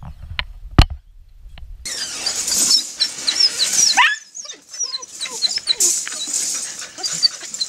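Bernese mountain dog puppies whining and squeaking in high, short calls, with a rising whine partway through and scattered clicks and rattles. A single sharp knock comes about a second in.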